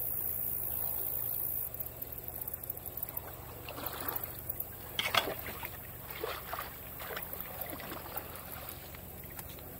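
Potato rake dragged and jabbed through shallow muddy water, making irregular splashes and sloshes in repeated strokes, the loudest about five seconds in, as mud and debris are raked away from a clogged drain pipe. A steady low rumble fills the first couple of seconds.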